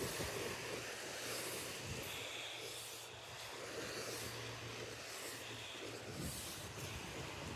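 A wooden stick scraping and scratching through damp sand as lines are drawn, over a steady outdoor hiss.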